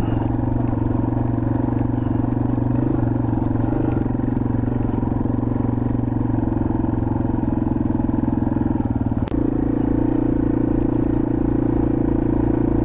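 2021 Yamaha TW200's single-cylinder four-stroke engine running at a steady pace while the bike is ridden along a dirt forest road. There is a single sharp click about nine seconds in, where the engine note shifts slightly.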